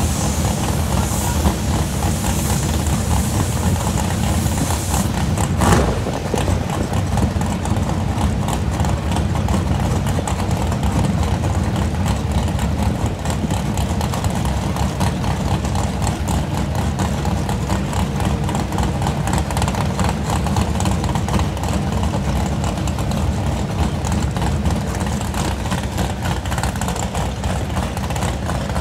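Drag cars' engines idling with a steady low rumble while staged at the starting line. There is a short knock about six seconds in.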